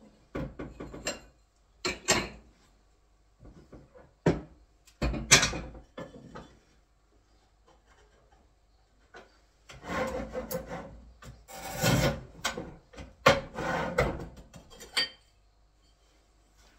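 A ceramic wall tile being cut by hand, with no power tool running: a few sharp knocks and clatters, a pause, then a run of short rasping scraping strokes in the second half.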